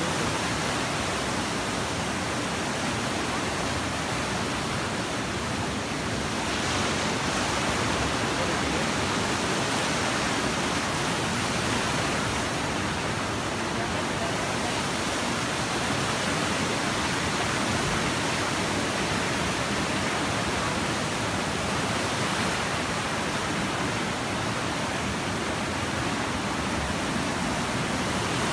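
The flooded Loing river rushing and churning in muddy white water: a steady, even roar of water.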